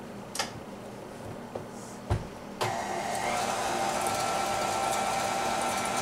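KitchenAid Ultra Power tilt-head stand mixer: a click and a sharp knock as the whisk is fitted and the head lowered, then about two and a half seconds in its motor starts and runs at a steady hum, the whisk blending dry flour, sugar and cinnamon in the steel bowl.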